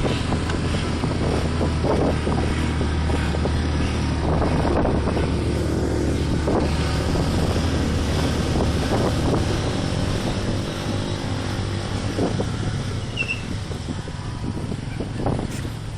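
Motor vehicle running along the road: a steady low engine hum under road and wind noise. The hum eases off after about nine seconds.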